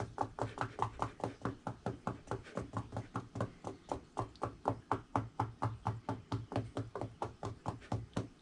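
Gloved fists knocking rapidly on both sides of a wooden soap loaf mold, an even run of about five knocks a second, to settle freshly poured, very fluid soap batter.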